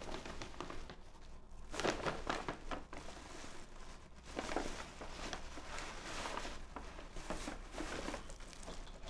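Paper gift bag and tissue paper rustling and crinkling as it is picked up, opened and rummaged through, in uneven spells.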